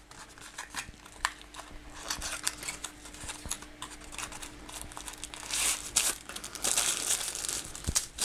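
Crinkling and rustling of a wrapper as a USB-C cable is unwrapped by hand, with small clicks of handling, getting louder in the second half.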